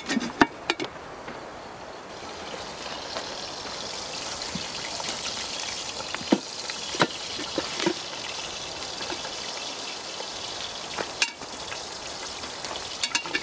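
Campfire coals hissing and crackling steadily, with a few sharp metallic clanks as a cast iron camp oven and its lifting hook are handled and set down on the coals.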